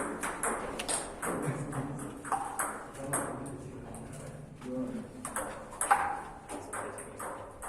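Table tennis ball being hit back and forth, sharp clicks of ball on paddle and table at about two to three a second through a rally.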